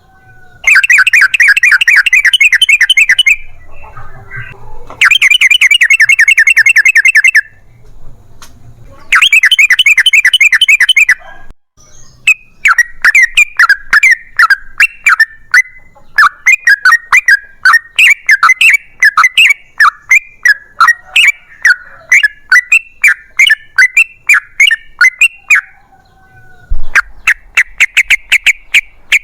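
Sooty-headed bulbul (trucukan) song in its long rapid-fire 'ropel' form: three fast trills of about two and a half seconds each, then a long run of quick chattering notes, and another fast trill near the end.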